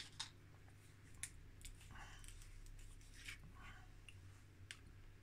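Near silence: room tone with a few faint, light clicks and rustles of hands working with small tools and parts on a cutting mat.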